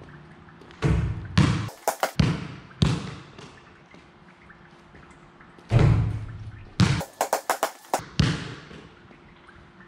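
A basketball hitting the hoop and bouncing on a concrete court, in two bursts of bounces; the second burst ends about seven seconds in with a quick run of shrinking bounces as the ball settles. Each bounce echoes off the brick wall.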